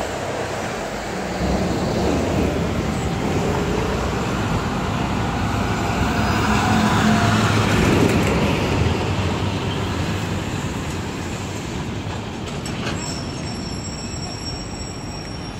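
Busy city street traffic: engines and tyres of passing cars and trucks, building to a loudest point about halfway through as something passes close, then fading.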